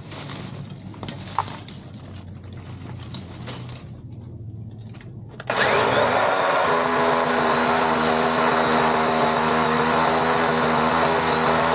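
DeWalt DCCS620 20V brushless battery chainsaw switched on about halfway through, its electric motor and chain then running with a steady whine. Before that, only a few light knocks.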